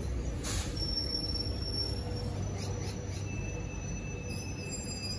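Metro X'Trapolis electric train rolling past the platform, a low steady rumble that slowly fades, with thin high wheel squeals. A brief hiss comes about half a second in.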